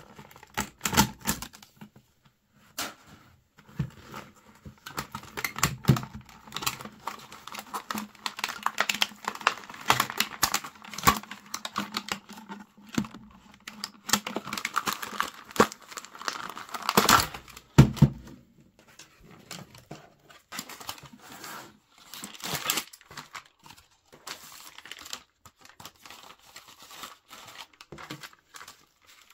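Plastic film and a foil packet of toy packaging crinkled and torn open by hand: irregular crackling and rustling, busiest in the middle with a loud burst of crinkling a little past halfway, then sparser handling near the end.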